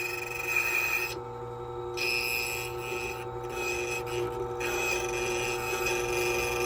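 Silca Speed 045 key cutting machine running with a steady motor hum while its cutting wheel rasps against a Ford key blank as the key is cut. The rasping breaks off briefly about a second in, again around three seconds, and once more near four and a half seconds.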